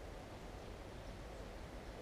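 Daytime outdoor ambience: a steady low rumble with a few faint, scattered bird chirps.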